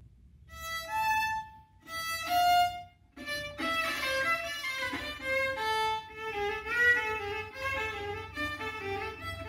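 Violin bowed with a rubber practice mute on the bridge: two short phrases, then a continuous melody from about three seconds in.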